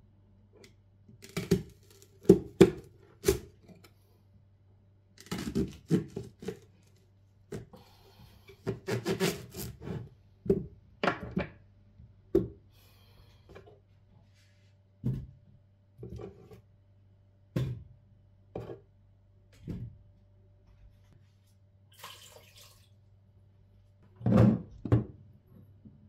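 Kitchen knife cutting leeks on a bamboo cutting board, a series of sharp knocks as the blade goes through to the wood, then single lighter knocks about a second apart as pieces are set down. Near the end comes a louder double knock as the wooden lid is lifted off a glass jar.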